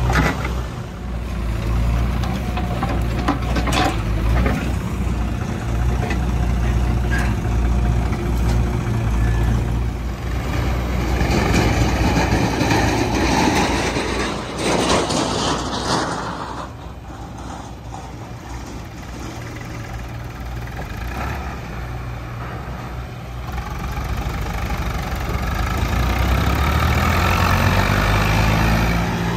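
Diesel engines of a JCB 3DX backhoe loader and a farm tractor running steadily, with a louder rush of noise in the middle as a bucketload of soil is tipped into the tractor's trailer. Near the end an engine revs up as the loaded Sonalika 740 tractor pulls away.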